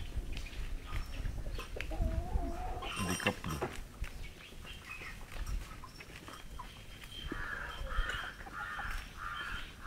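Chickens feeding from a basket, their beaks pecking with scattered light clicks, and a few short calls, including a run of about five quick repeated calls near the end.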